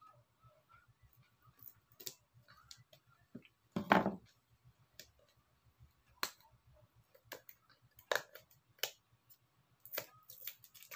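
Scissors snipping the seal on a cardboard phone box, then scattered clicks, taps and light rustles as the box and its paper are handled, with one louder knock about four seconds in.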